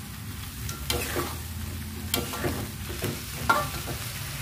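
Metal spatula stirring and scraping tofu and tempeh around a wok, a scrape about every half second, over a steady low sizzle of the frying spice paste.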